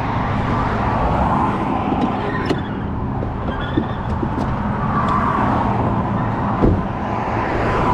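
Roadside traffic noise: vehicles passing at speed in swells over a steady engine idle, with a few sharp clicks and one louder thump about two-thirds of the way through.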